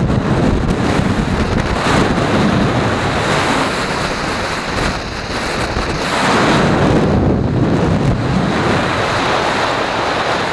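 Wind buffeting the camera microphone: a loud, steady rushing noise that swells and eases in gusts.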